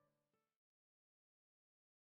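The last plucked notes of guitar outro music fading out and stopping about half a second in, then dead silence.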